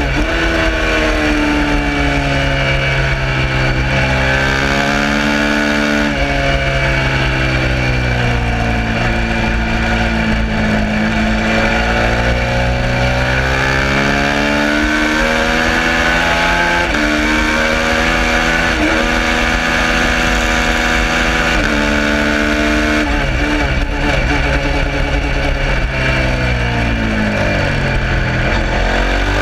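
Suzuki SV650's 645 cc 90-degree V-twin at racing speed, revving up through the gears with pitch climbing, then dropping back on shifts and braking several times over.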